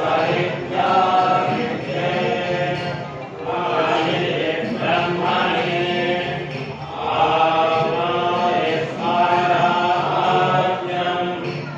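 Men's voices chanting Tamil devotional verses in a steady recitation, in phrases of about three seconds separated by short breaths.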